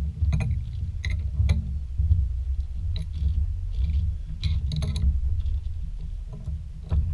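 Scattered light metallic clicks and knocks, as of lathe chuck parts and screws being handled and refitted, over a steady low hum.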